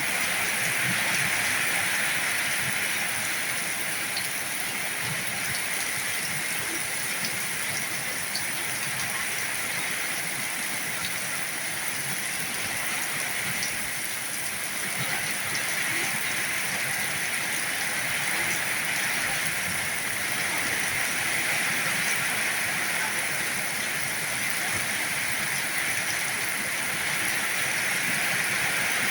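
Heavy rain falling steadily, a dense, even hiss of drops with no gaps, swelling and easing only slightly.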